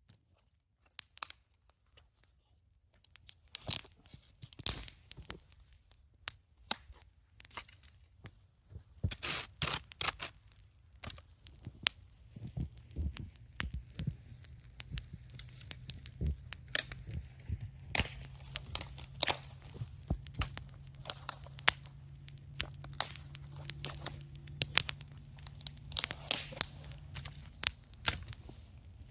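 Wood campfire crackling, with many sharp pops: sparse and faint at first, then much busier from about nine seconds in.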